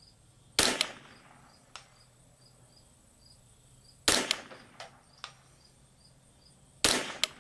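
Three .22 LR rifle shots from a KIDD semi-automatic Ruger 10/22, a few seconds apart, each a sharp crack with a short echoing tail. After the first two, a faint tick comes about a second later, typical of the bullet striking a steel target at 200 yards. Crickets chirp faintly behind.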